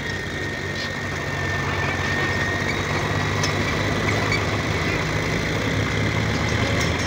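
Swaraj 735 FE tractor's diesel engine running steadily at an even pitch.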